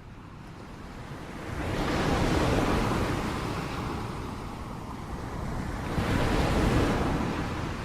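Ocean waves breaking on the shore: two waves crash, about two seconds in and again about six seconds in, each washing out as it fades.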